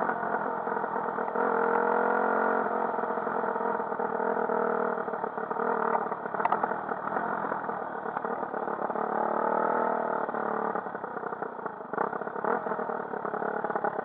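Enduro dirt bike engines running while riding along a paved road, the engine note rising as the bike accelerates about two seconds in and again around nine to ten seconds, with a few short knocks near the end.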